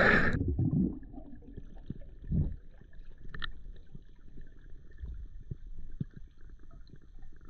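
Water splashing as a spearfishing diver goes under at the start, then muffled underwater sound heard through the submerged camera: a low rumble with scattered faint clicks and a sharper knock about three and a half seconds in.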